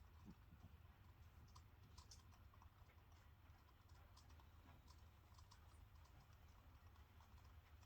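Near silence: room tone with a steady low hum and faint, scattered clicks.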